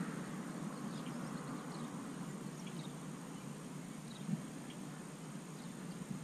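Quiet outdoor background: a low steady hiss with faint, scattered high chirps, and one soft click about four seconds in.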